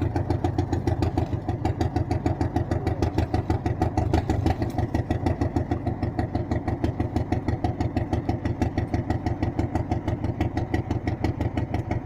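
Engine of a small tracked all-terrain vehicle running steadily with an even, rapid putter.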